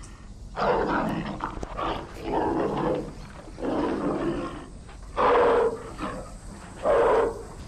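Tiger cub calling: a series of short, harsh growling calls about a second apart, the last two the loudest.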